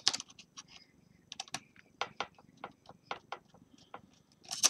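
Small, irregular clicks and ticks from a Phillips screwdriver backing out the small screws on the side of a laptop LCD panel.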